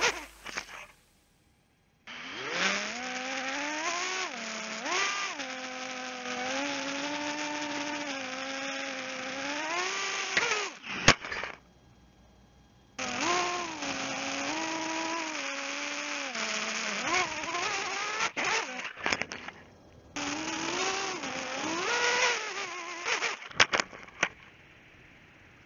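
135 mm FPV racing quadcopter's brushless motors whining, heard through the onboard camera's microphone, the pitch rising and falling with the throttle. The sound drops out briefly a few times, with a sharp click about eleven seconds in and more clicks near the end.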